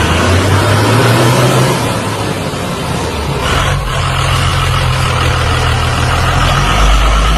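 Heavy-vehicle engine running steadily: a continuous low rumble with a noisy haze over it.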